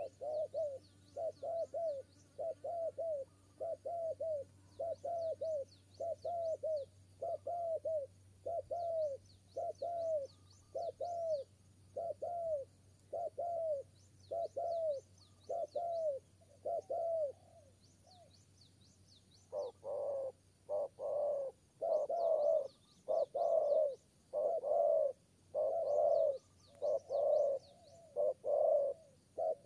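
Spotted dove cooing in a long run of short, arched, repeated coos. After a short pause about two-thirds of the way in, louder and harsher coos take over.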